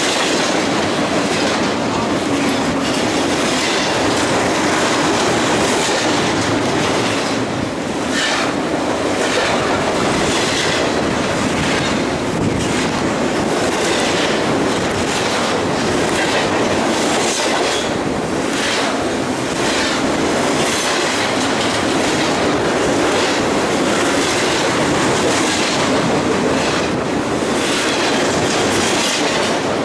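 Double-stack intermodal freight train's well cars passing close by: a steady loud rumble of steel wheels on the rails, with a repeated clickety-clack as the wheel sets go by.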